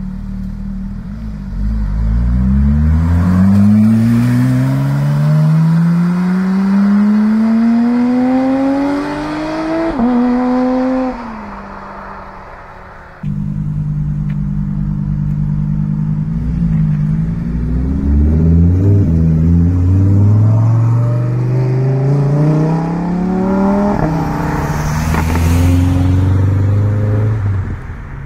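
Porsche 911 GT3 RS's naturally aspirated flat-six accelerating hard away in one long rising pull, with an upshift about ten seconds in, then fading. After a cut, a Lamborghini Huracán Evo's V10 pulls away from low revs and rises through the gears, with an upshift and a second climb near the end.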